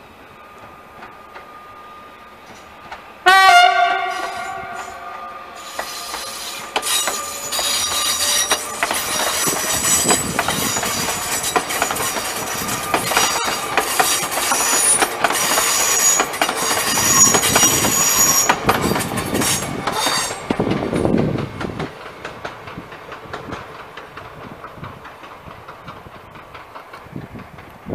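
Electric multiple-unit train sounds its horn in one blast about three seconds in, then runs past over the level crossing. Its wheels click over the rail joints with a high-pitched squeal, loudest midway, and the sound fades as it moves away.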